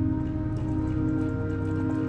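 Relaxing background music with long held chords over a deep low bass.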